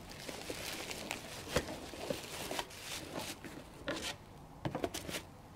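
Plastic bubble wrap and cardboard packaging rustling and crinkling as they are handled, with scattered light clicks and knocks.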